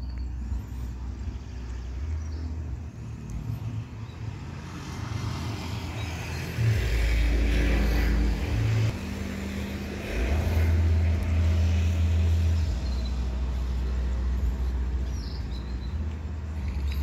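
Deep bass from a giant 'sound horeg' speaker stack being sound-checked: long, heavy low bass tones that shift in pitch and loudness every couple of seconds, growing louder about seven seconds in and again about ten seconds in.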